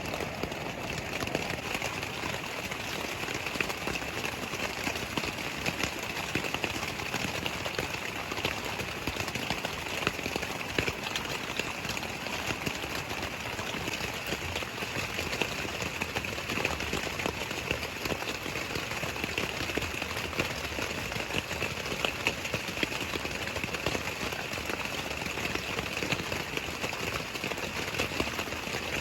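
Steady rain falling, with many small drops ticking irregularly, over the continuous rush of a mountain stream.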